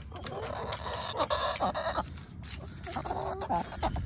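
Several backyard hens clucking, with short rising and falling calls overlapping one another.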